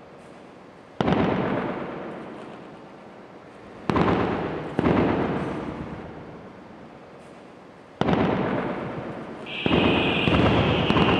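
Fireworks going off: about five sudden bangs, each fading away over a second or two, with a high steady whistle joining in near the end.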